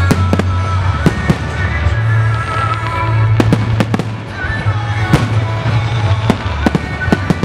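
Aerial firework shells bursting in a rapid, irregular barrage of a dozen or more sharp bangs, over loud music from the pyromusical show.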